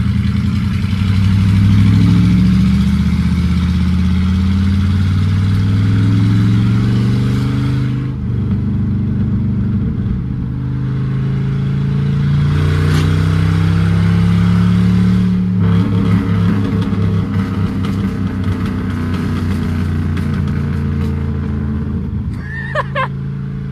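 Car engine pulling under acceleration, its pitch climbing slowly, then easing off about a third of the way in and pulling up again. About two-thirds through, the exhaust pops and crackles for several seconds on lift-off before settling.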